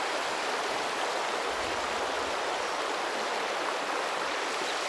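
A river running steadily, white water rushing over shallow rocks.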